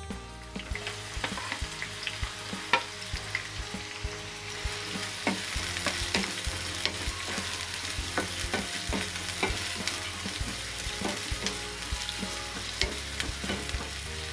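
Sliced onions sizzling in hot oil in a non-stick pan, stirred with a wooden spatula that knocks and scrapes against the pan many times. The sizzle grows louder about five seconds in.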